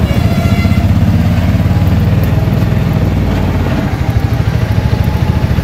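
Auto-rickshaw's small engine running under way, a rapid, steady low chugging heard from inside the open cabin, easing slightly about four seconds in.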